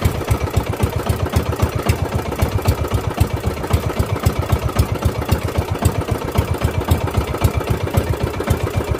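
Outrigger fishing boat's engine running steadily at low throttle for trolling, a fast, even chugging.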